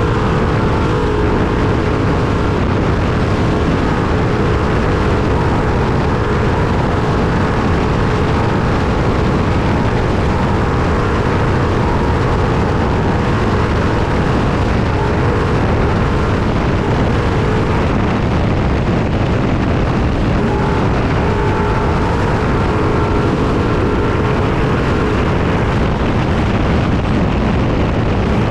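Trophy truck at race speed over rough desert, heard from inside the cab: a loud, steady mix of engine, wind and chassis noise, with the engine's note showing through faintly now and then.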